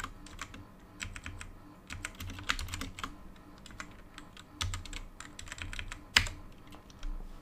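Typing on a computer keyboard: irregular runs of keystrokes as code is entered, with one louder click about six seconds in.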